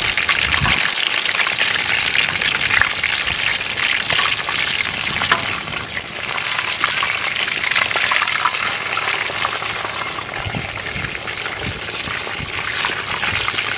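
Whole chickens deep-frying in hot oil in a kadai: a steady sizzle thick with fine crackling.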